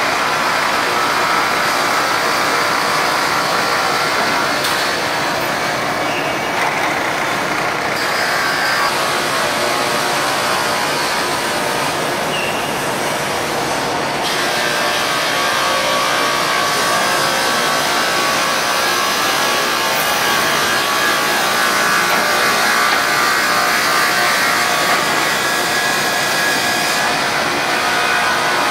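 Steady, loud machinery noise of a fiber cement board sanding and edging line running, with sanding machines, dust extraction and belt-driven roller conveyors all going at once.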